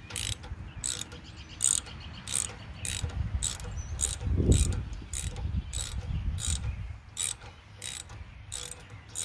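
Socket ratchet wrench with an extension being cranked to tighten a bolt, its pawl giving a short run of clicks on each back-swing, a little under two strokes a second. A low bump about halfway through.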